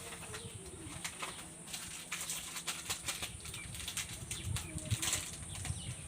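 Candy wrapper crinkling and rustling in irregular crackles as sweets are unwrapped and handled.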